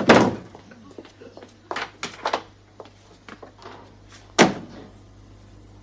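A cupboard door is pushed shut with a loud thump. A few light clicks and knocks of a latch and steps follow, and about four seconds in the front door shuts with a sharp bang.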